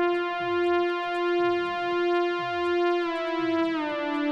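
Improvised synthesizer music: one held note over a low pulse that drops in pitch, repeating about every two-thirds of a second. The held note steps slightly lower near the end.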